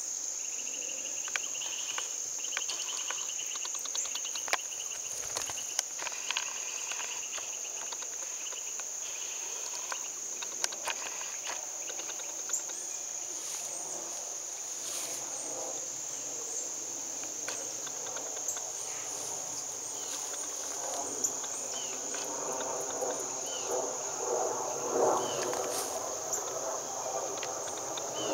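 Insects trilling in a steady, high-pitched, continuous drone, with fainter pulsing chirps underneath during the first several seconds and a few scattered clicks.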